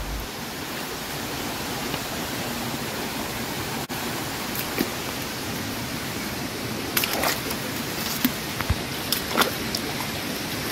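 Steady rush of running water from a forest stream, with a few short clicks near the end.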